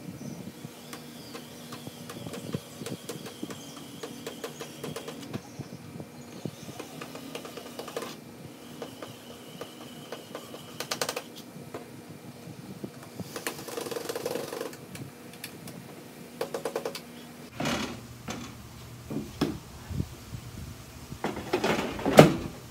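Battery-powered screwdriver running in several short runs of a few seconds each, driving screws back into a plastic air fryer housing, with small clicks and handling knocks between runs. A sharp knock near the end is the loudest sound.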